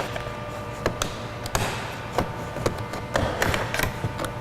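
Plastic door switch panel being pried up with a plastic trim tool: a series of irregular plastic clicks and taps as the clips work loose, over a steady hum.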